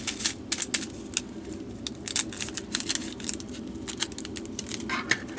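Irregular light clicks, crinkles and rattles of a small plastic bag of resin diamond-painting drills being handled and loaded into a storage container.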